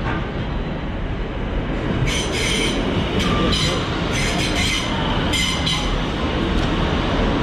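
Northern passenger train pulling into the platform and slowing, a steady low rumble with several short bursts of high-pitched squealing from about two seconds in.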